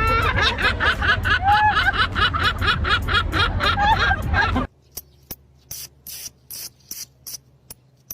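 An animal's rapid, regular chattering calls, about four or five a second, that cut off abruptly after about four and a half seconds. Sparse sharp clicks follow.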